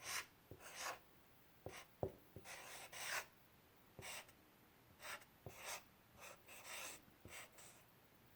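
Faint scratching strokes of a pen or marker writing out a sentence word by word, in short bursts with brief pauses, and a few light taps as the tip meets the surface.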